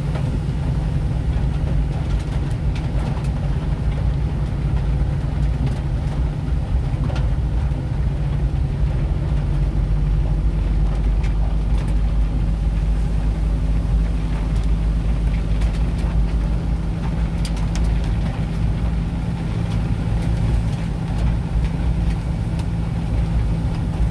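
Steady low rumble of a vehicle's engine and tyres on wet pavement, heard from inside the cabin while driving.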